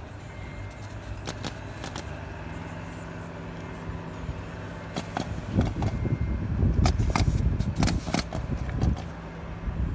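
Pneumatic roofing nailer firing nails into asphalt shingles: a few sharp shots, then a quick run of them between about five and nine seconds in, over a low steady hum.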